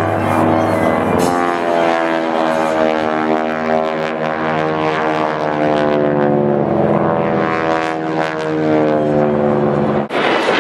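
Propeller airplanes flying aerobatics overhead: a steady piston-engine drone whose pitch slides slowly down and then back up as the planes turn. About ten seconds in it cuts abruptly to a rougher, noisier rush.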